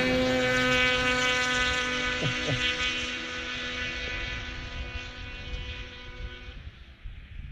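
Snowmobile engine running at a steady cruising speed, an even drone with a rumble under it, fading out gradually until the drone stops near the end.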